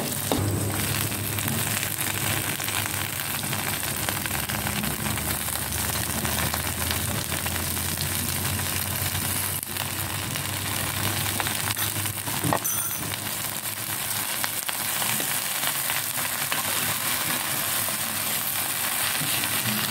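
Scrambled egg and leafy greens sizzling in hot oil in a steel wok, a steady frying hiss. A couple of sharp knocks come around halfway through.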